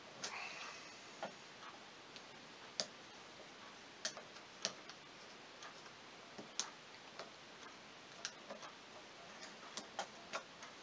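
Small screwdriver tip clicking and scraping against a hand-brake master cylinder as the piston is held in and an O-ring is worked under the lip of its bore: faint, irregular ticks.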